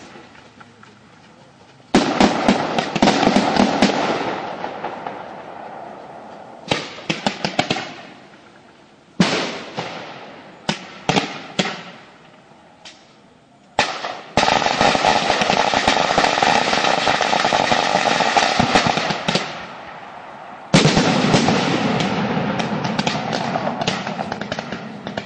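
Fireworks going off in waves of rapid crackling and sharp bangs. A burst comes about two seconds in, then scattered clusters of cracks, a long dense run of crackling in the middle, and another wave near the end.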